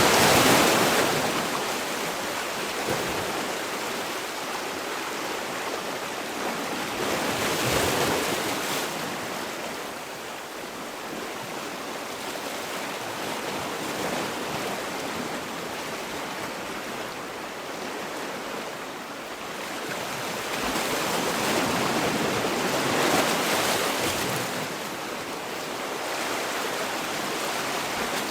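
Sea waves rushing and washing ashore: a steady hiss that swells as a wave breaks, three times several seconds apart.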